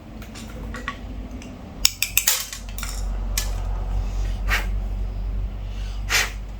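Small metal tools and carburetor parts clinking on a workbench: a quick run of sharp clinks about two seconds in, then single clinks, with a low steady hum underneath.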